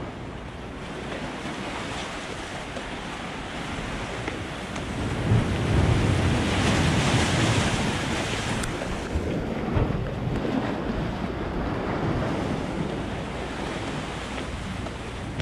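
Wind buffeting the microphone over the wash of sea water at a harbour, with a stronger gust about five seconds in that eases off a few seconds later.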